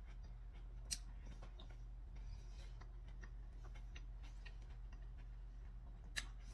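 Quiet kitchen room tone: a steady low hum with a few faint scattered ticks, and two sharper clicks, one about a second in and one near the end.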